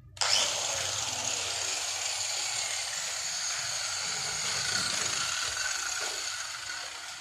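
Electric angle grinder switched on with a sudden start and running freely at full speed with a steady high whine. It slowly winds down over the last couple of seconds.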